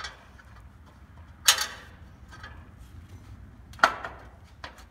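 Steel shackle mount clinking and knocking against the truck frame as its 2-inch tube is pushed and rocked into the freshly cut hole. Two sharp metal knocks a little over two seconds apart, then a light tap near the end. The tube is still a little too tight to pass through.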